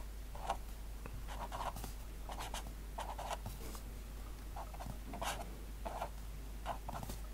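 Artline 210 fineliner pen writing on lined paper: short, irregular scratches of the felt tip as each symbol is drawn, over a steady low hum.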